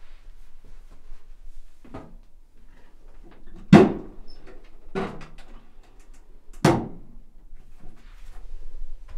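Three loud bangs like a door or cupboard being banged, about a second and a half apart, the first the loudest, with a fainter knock a couple of seconds before them.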